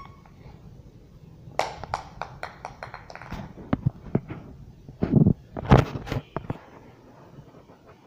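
Irregular clicks, taps and rustling thumps close to the microphone, loudest about five to six seconds in: handling and movement noise as the handheld camera moves against a small dog and its plush toy.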